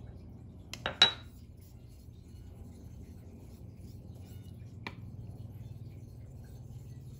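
Hard objects clinking: a quick double clink about a second in, the second one ringing briefly, then a single light tick near five seconds, over a low steady hum.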